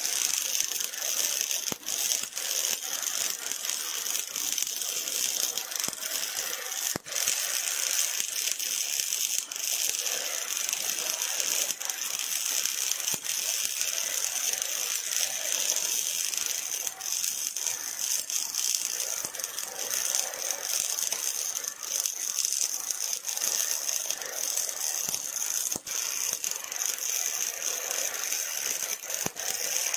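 Robotic arc welding: the welding arc's continuous dense crackle over a bright high hiss, steady throughout.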